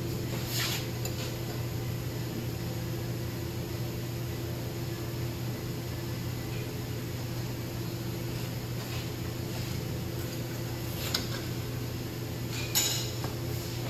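A few light metallic clicks and clinks as temporary mechanic's wire is taken off a tractor-mounted vine trimmer: one shortly after the start, one about eleven seconds in and the loudest near the end. A steady machine hum runs under them.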